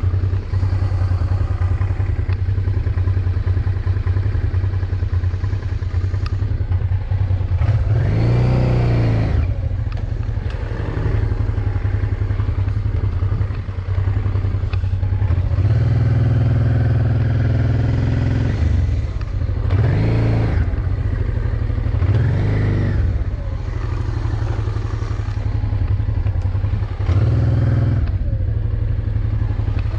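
Honda motorcycle engine running at low revs on a rough track, opened up and eased off about four times.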